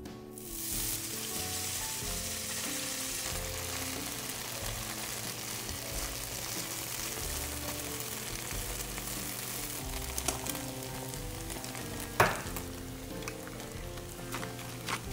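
Shredded potato and ham sizzling steadily in hot oil in a nonstick frying pan while being stirred with chopsticks. The sizzle starts sharply about half a second in. A single sharp tap stands out near the end.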